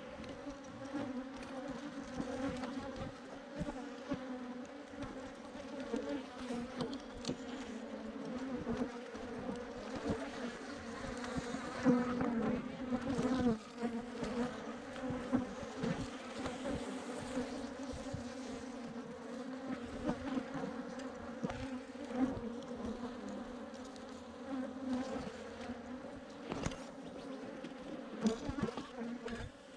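Steady, dense buzzing of a large swarm of Africanized honeybees, with a few short knocks scattered through it.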